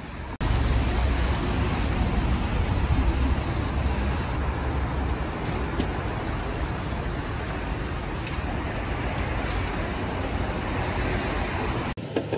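Steady road traffic noise: a dense hiss of passing vehicles over a deep rumble. It starts abruptly about half a second in, the rumble is heaviest in the first few seconds, and it drops away shortly before the end.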